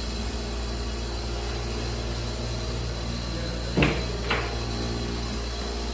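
A steady low hum with a faint hiss, broken twice by short knocks about half a second apart, a little past the middle.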